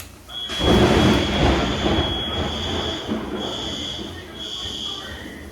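A thunderclap from a close lightning strike, a loud rumble that peaks about a second in and slowly dies away. At the same moment a fire alarm starts with a high steady tone, then from about two seconds in beeps in groups of three with a pause between.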